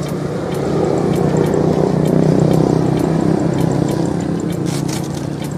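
A motor's steady drone passing by, swelling over the first two seconds or so and then slowly fading.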